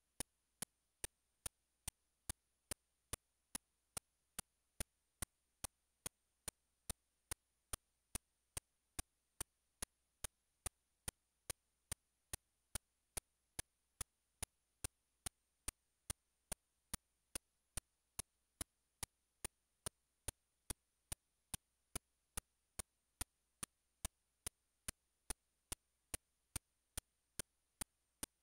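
Sharp, evenly spaced ticks, about two a second, over near silence with a faint steady high whine.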